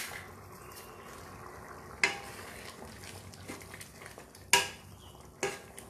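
Wooden spatula stirring a thick, simmering dal in a metal kadai over a faint, steady simmer, with sharp knocks of the spatula against the pan about two seconds in and twice near the end.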